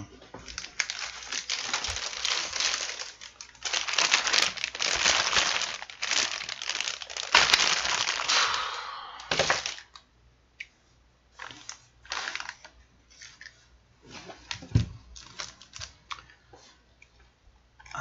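Packaging being rummaged through and handled while the cooler's box is searched for its manual: dense crackling for about the first nine seconds, then sparse rustles and light clicks.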